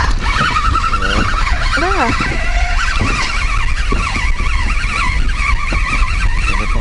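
Small outboard motor running as the inflatable boat moves, a steady wavering whine over a low rumble.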